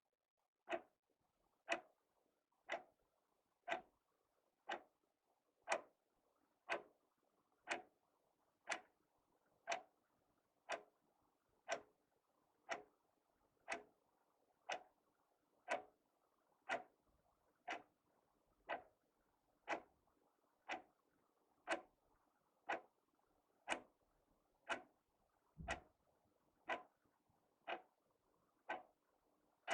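Wall clock ticking evenly, one sharp tick a second, one tick about three-quarters of the way through carrying a deeper thud.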